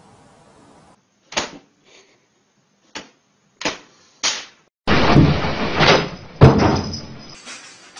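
A few separate sharp knocks, then a loud crash of heavy thuds and clatter lasting about two seconds, loudest near the end of it.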